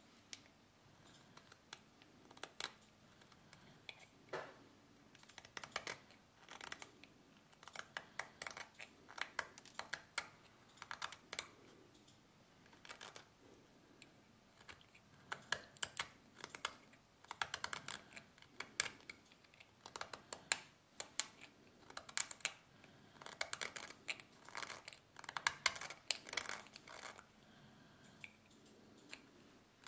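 Small hand-held carving blade shaving and scraping a tagua nut (vegetable ivory) in short, crisp strokes that come in irregular flurries with brief pauses: the early roughing-out of a carving.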